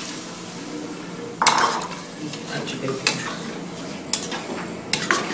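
A utensil stirring chicken and water in a cooking pot, knocking sharply against the pot about four times, over a steady sizzle from the hot pot.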